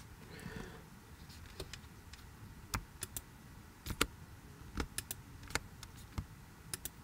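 Computer mouse and keyboard clicks: about fifteen sharp, irregularly spaced clicks as keys such as shift and control are held and the mouse is clicked.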